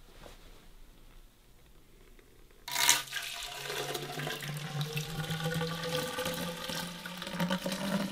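Thick coffee etching solution poured from a plastic measuring container into a tall black pipe, the pour starting suddenly about two and a half seconds in with a splash and running on as a steady gush. A low tone sounds under it and rises slightly as the pipe fills.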